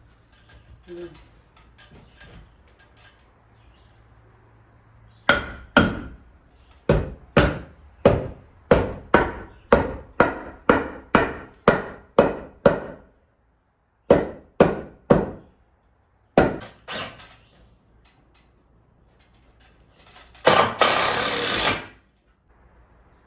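Hammer striking wood in a steady run of blows, about two a second, then a few more blows after a short pause. Near the end comes a brief rasping noise about a second and a half long.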